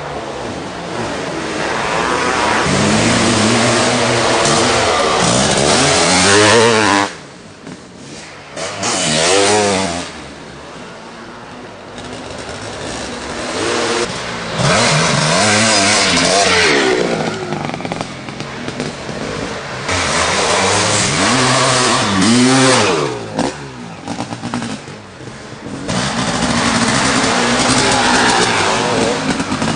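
Several 500cc two-stroke motocross bikes riding past one after another, engines revving hard, pitch rising and falling as they accelerate and shift, with brief lulls between bikes.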